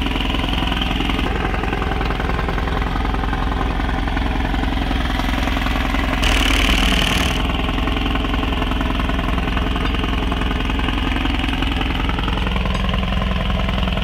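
An engine running steadily at idle. About six seconds in, a brief hiss lasts a little over a second.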